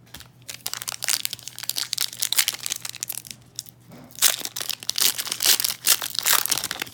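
Trading-card pack wrapper crinkling and tearing as a pack is torn open by hand, in two stretches of dense crackling with a short lull between them.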